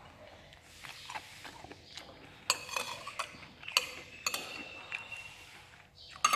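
Metal spoon clinking against ceramic dishes: several sharp clinks about a second apart, one ringing briefly, the loudest right at the end.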